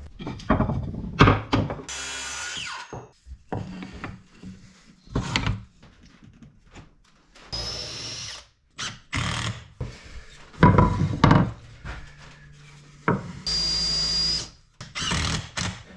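Cordless drill running into wood in three short bursts of about a second each, the later two with a steady high whine. Short knocks and clatter come between the bursts.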